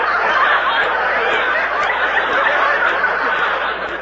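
Studio audience laughing, a loud, dense wave of crowd laughter from an old radio broadcast recording.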